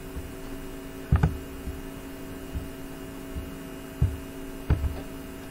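Steady electrical mains hum made of several held tones, broken by three dull thumps: about a second in, at four seconds and just after.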